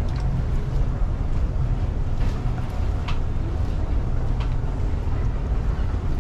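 A motorboat's engine running steadily with a low drone, while water and wind rush past the hull. A few brief knocks sound about two, three and four and a half seconds in.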